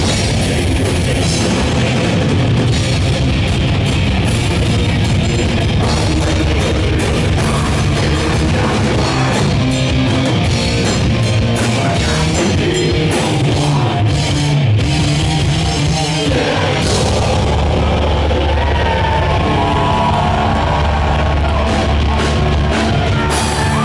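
Live heavy rock band playing loud with distorted guitars, bass and a drum kit. In the last few seconds the drumming thins out under a held low chord, with wavering guitar notes ringing above it.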